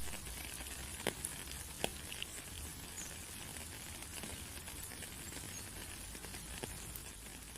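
Faint steady hiss with scattered small clicks and crackles, fading out near the end.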